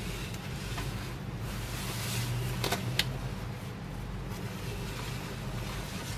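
Handling noise as a packaged fabric cargo organizer in a cardboard sleeve is gripped and turned by hand: rubbing and rustling over a steady low rumble, with two sharp taps about three seconds in.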